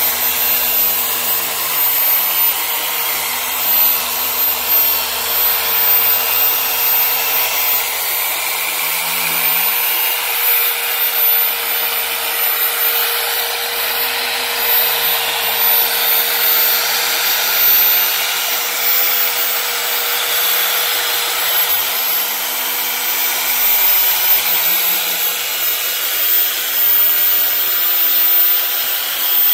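Handheld electric polisher running steadily with a small foam pad, buffing finishing polish into a plastic headlight lens, with a steady motor whine.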